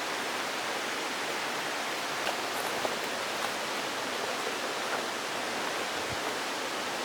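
Steady rush of a mountain river's water, an even, unbroken noise with a few faint clicks over it.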